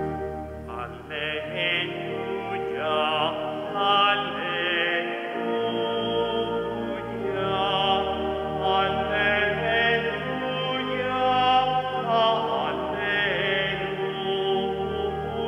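Pipe organ holding steady chords under a singer with a wavering vibrato, in church chant style: sung liturgical music at the point of the Gospel acclamation.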